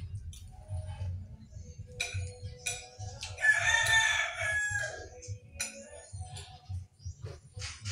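A rooster crows once, loudly, for about a second, starting about three and a half seconds in. A low rumble runs underneath.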